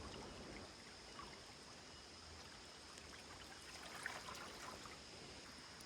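Faint, steady trickle of a shallow river running over stones.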